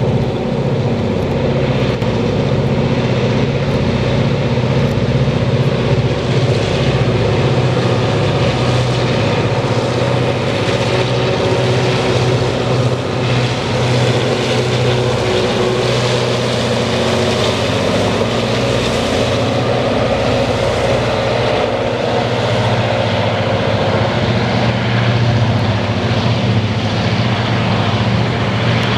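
Two HŽ 2062-series diesel-electric locomotives (EMD G26CW, two-stroke V16 diesel engines) working hard under load as they haul a heavy freight train uphill: a loud, steady, deep engine drone, with the wagons' wheels rumbling over the rails.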